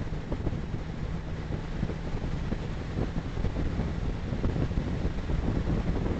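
Steady low road rumble of a car cruising at motorway speed, about 110 km/h: tyre and wind noise picked up by a dashcam's microphone, with a faint steady hum under it.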